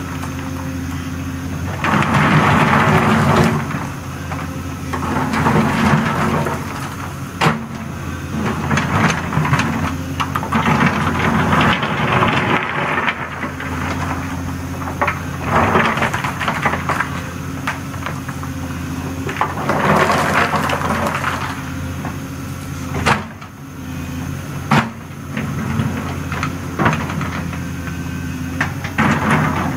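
Volvo excavator's diesel engine running steadily while its bucket rakes and spreads rip-rap rock down a slope: repeated swells of scraping and clattering stone every few seconds, with a few sharp knocks of rock on rock.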